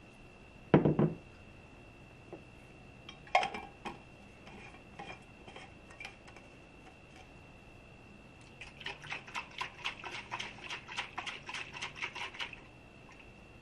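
A pitcher set down on a countertop with a thump, then the straw lid of a Hydro Flask kids water bottle clicked into place. From about nine seconds in, the filled bottle is shaken hard upside down for about four seconds, giving quick rattling knocks about six a second.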